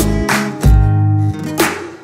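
Background music: a track built on plucked acoustic guitar, with a steady low beat and sharp percussive hits.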